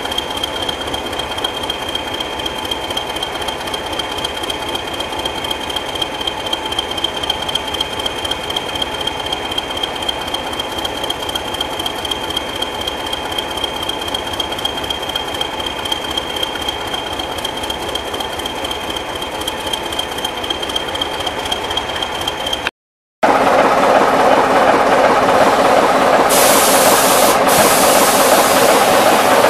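Diesel locomotive engine idling steadily: a rapid, even beat with a high, steady whine over it. After a sudden cut near the end comes a louder, rougher sound of a diesel train working.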